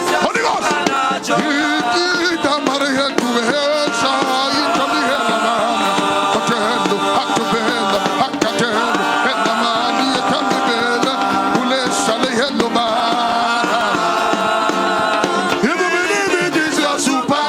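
Gospel worship music playing steadily, with sustained chords, a wavering melodic line and drum percussion.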